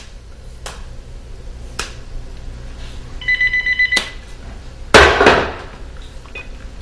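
A telephone rings once, a short electronic trill about three seconds in, amid a few sharp knocks and clicks. About a second later comes a loud clatter, the loudest sound.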